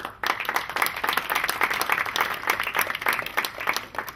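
Audience applauding with dense, many-handed clapping that begins suddenly and thins out near the end.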